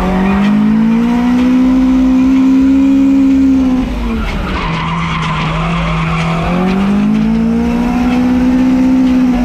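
Toyota AE86 Corolla drift car's engine held high in the revs with tyres skidding: the revs climb and hold, drop about four seconds in as the driver comes off the throttle, then climb and hold again for a second drift.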